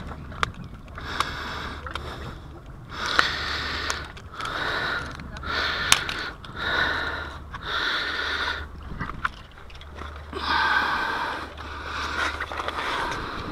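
Small sharp metal clicks from pliers working a fishing lure's split ring, over a rushing noise that comes in short washes about once a second.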